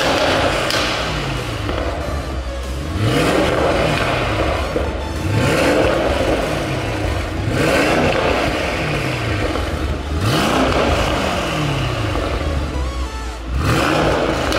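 Mercedes-AMG E63 S's 4.0-litre twin-turbo V8, fitted with MTC decat downpipes, revved hard while standing still: about six sharp blips, each rising quickly and falling back toward idle, roughly every two and a half seconds.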